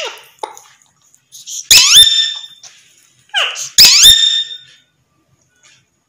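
Alexandrine parakeets giving loud, harsh calls that sweep up in pitch, one burst about two seconds in and another about four seconds in.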